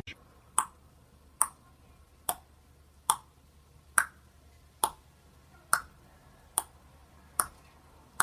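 A sharp click with a short ringing tone, repeating evenly a little more than once a second, about ten times.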